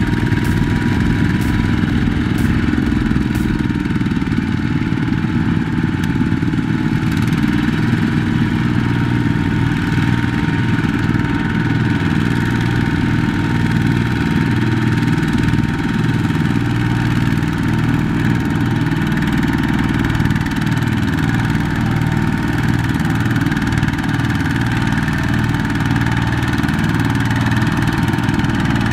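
Single-cylinder diesel engine of a walk-behind two-wheel tractor running steadily under load as the tractor churns through deep mud.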